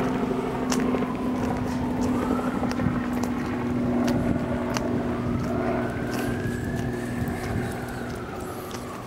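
Steady vehicle-engine drone with a higher tone that slowly rises and falls, and scattered light clicks.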